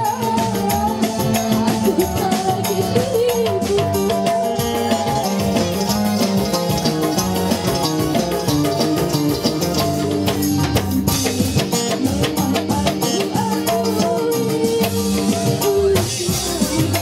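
Live band music: electric keyboard and electric guitar over a busy drum and percussion beat, with a woman singing into a microphone at times.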